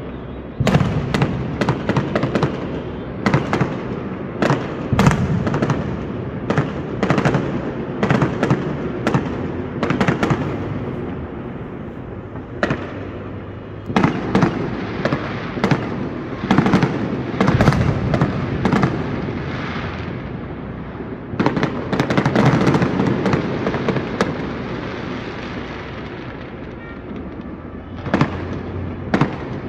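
Fireworks going off in rapid, irregular volleys: many sharp bangs and crackles over a continuous rumble. They thin out for a few seconds near the end, then pick up again.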